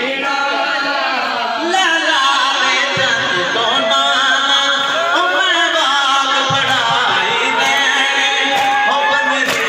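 A man chanting a noha, a Shia mourning lament, into a microphone, the melody rising and falling in long phrases. Two dull thumps come about three and six and a half seconds in.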